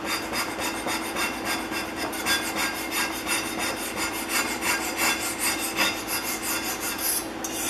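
Rapid, repeated strokes of a box-cutter blade scraper rasping surface rust off a cast-iron hand plane base, metal edge scraping on rusty metal.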